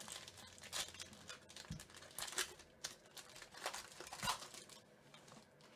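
Foil wrapper of a Topps Tier One baseball card pack crinkling as it is torn and pulled open by hand, in short irregular bursts that thin out near the end.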